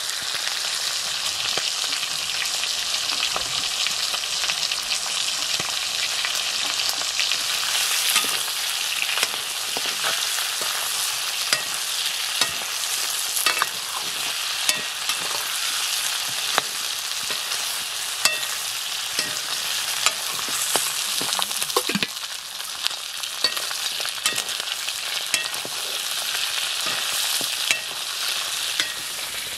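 Pork pieces sizzling steadily as they fry in a steel wok, stirred with a metal ladle. From about the middle on, the ladle clinks against the pan about once a second.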